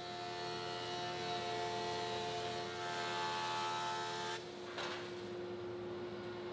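Jointer with a Shelix helical carbide-insert cutterhead face-jointing a rough pine board, taking a light cut to flatten it. The cutting noise stops about four seconds in as the board clears the cutterhead, leaving the machine's steady hum.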